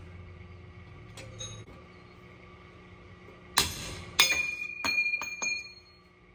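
Hammer driving a punch against the steel pinion bearing race inside a Ford 9.75" differential housing: two light taps, then five sharp metal strikes that ring. The race is getting loose in its bore.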